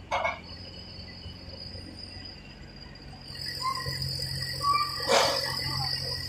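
Mini excavator's small Yanmar diesel engine running with a low, steady hum and a steady high-pitched whine, both growing louder about halfway through, with two sharp knocks, one near the start and one near the end.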